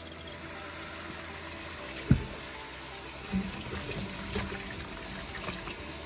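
Kitchen sink faucet running in a steady stream while cut potatoes are rinsed under it, the flow getting stronger about a second in. A single sharp knock about two seconds in.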